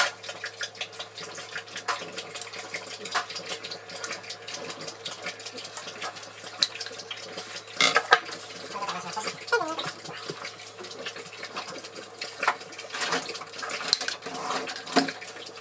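A metal spoon spreading Nutella over rolled-out puff pastry on baking paper, with repeated soft scrapes and clicks. Near the end the spoon scrapes and clinks inside the glass Nutella jar while scooping more.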